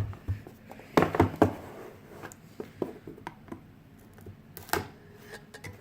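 Cardboard retail box being opened by hand: a series of sharp knocks, clicks and scrapes, loudest in a cluster about a second in and again near the end.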